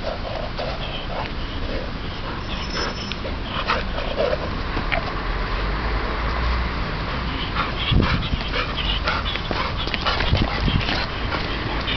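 Labrador retriever making a few short whines and yips, over a steady low rumble on the microphone. A sharp knock comes about eight seconds in, and several sharp clicks follow near the end.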